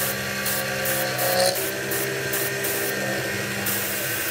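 Milling machine end mill pocketing an aluminum plate under coolant: the spindle runs with a steady hum of held tones, and a high hissing cutting noise comes and goes every fraction of a second as the cutter works through the pocket.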